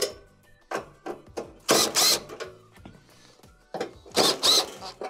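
Cordless drill/driver running in short bursts, its motor whine wavering, as it backs out Phillips screws from a range's sheet-metal console panel: two longer bursts about two and four seconds in, with shorter blips between. Light background music underneath.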